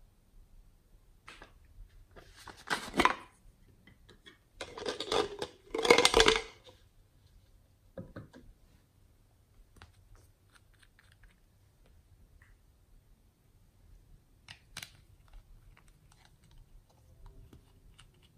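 Clay being squeezed out of a plastic piping bag onto slime: three short noisy bursts about three, five and six seconds in, the last the loudest. After these come scattered light clicks and taps of a small plastic bottle and cap being handled.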